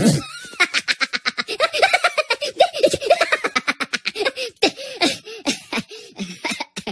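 Minion cartoon characters laughing: rapid, high-pitched giggling in quick bursts of several a second, thinning out toward the end.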